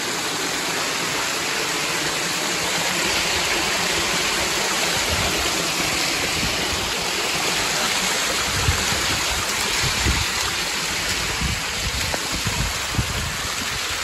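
Water rushing and splashing down stone steps in a steady cascade, with irregular low bumps in the second half.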